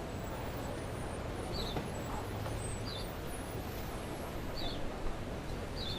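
Added street ambience: a steady low rumble of city traffic, with a small bird giving a short chirp four times, about every second and a half.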